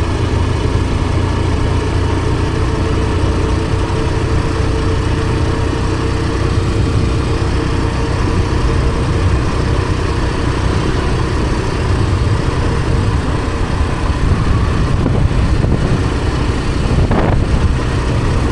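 Motor vehicle engine running steadily, with a continuous low rumble and a steady hum.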